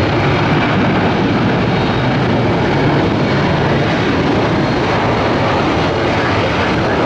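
Jet engines of a Frontier Airlines airliner rolling down the runway after landing: a loud, steady rushing noise with no breaks.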